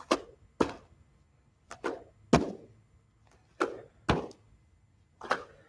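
Bare feet landing on padded gymnastics mats during repeated squat jumps: a series of short thuds, some in close pairs, with quiet between them.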